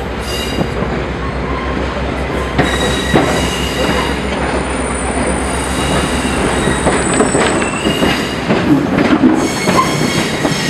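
Scenic-railroad open-air passenger car rolling along the track: its steel wheels squeal in thin high tones and clack over the rail joints. A low steady rumble underneath drops away about seven seconds in.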